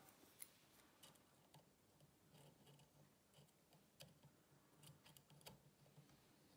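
Near silence with scattered faint, irregular clicks of tweezers and a screwdriver touching the brass movement of a Breguet clock as a spring and its screw are fitted.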